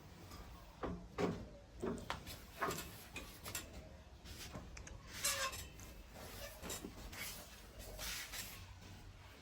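Scattered soft knocks, clicks and rubbing sounds of things being handled, over a low steady hum.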